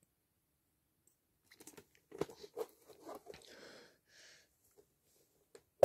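Plastic VHS tape case being handled: a run of small clicks, crackles and rustles, ending in a sharp click.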